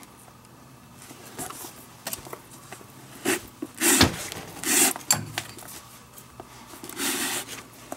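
Leather lace pulled through the lacing holes of a catcher's mitt with a lacing needle: a handful of rubbing, scraping swishes of lace on leather. The longest comes near the end.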